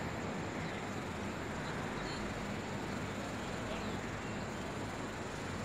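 Steady outdoor background noise: a low, even hum of distant road traffic.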